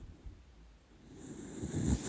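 Sleeping dachshund snoring: quiet at first, then a low snoring breath builds from about halfway through.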